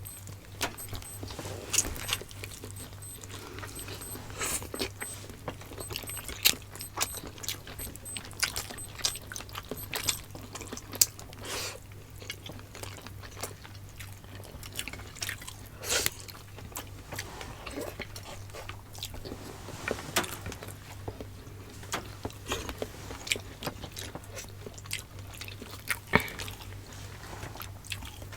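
Close-miked eating: chewing and biting into pork adobo and pinakbet vegetables, heard as scattered short wet smacks and clicks over a steady low hum.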